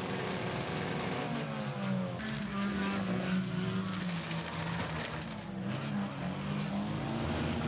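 Banger racing cars' engines revving as the wrecked cars shunt and push against each other, the engine pitch dropping in the first two seconds and then holding steady. A couple of sharp knocks come about two seconds in.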